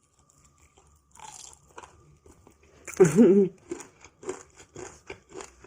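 Crispy fried chicken being bitten and chewed close to the microphone, crackling crunches that settle into a regular chewing rhythm of about four crunches a second. A short hummed "mm" comes about three seconds in.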